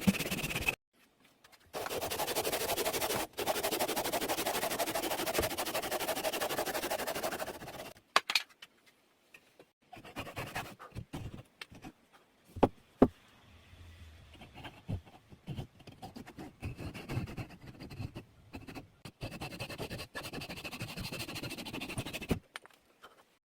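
Hand woodworking on wood: about six seconds of continuous, dense rasping and scraping, then a longer stretch of lighter, scattered taps and scrapes.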